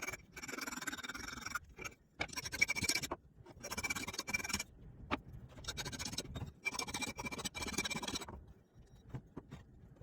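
A hand file drawn in about five long strokes across a steel axe head, the metal ringing under each stroke. This is a file test of hardness: the steel up near the bit is still hard.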